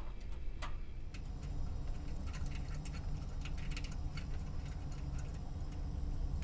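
Faint, scattered small clicks and taps of a door switch and its screws being fitted by hand onto the sheet-metal frame of an NCAT furnace, over a low steady hum.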